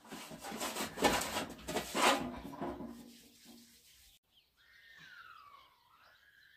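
Rubbing and rustling for about three seconds, loudest around the first and second seconds. Near the end comes a faint bird call that glides down in pitch and then back up.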